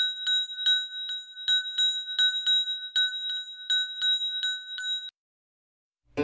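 A small hanging bell ringing over and over, struck about three times a second with a steady, bright tone, stopping abruptly about five seconds in.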